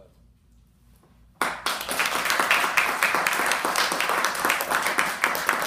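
An audience applauding: clapping begins suddenly about a second and a half in and keeps on steadily.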